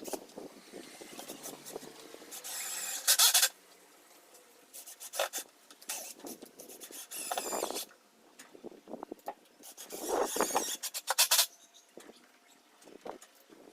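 Intermittent rubbing and scraping on a hard material: several separate strokes up to about a second long, the loudest a few seconds in, with pauses between them.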